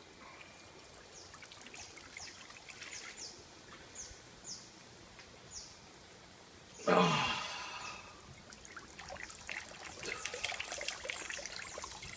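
Water from a battery-powered portable camping shower splashing onto a person, building to a steady patter in the second half. About seven seconds in comes a man's short loud exclamation, and a bird chirps repeatedly earlier on.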